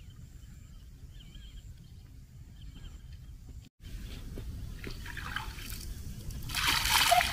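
Water trickling and splashing as a mug of lake water is poured over a child standing in shallow water, the pour loudest near the end. The first half is a quiet outdoor background.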